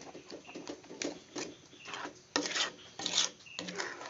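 Spatula scraping and stirring thick durian paste with sugar in a pan, in irregular rubbing strokes, the loudest about two and a half to three seconds in.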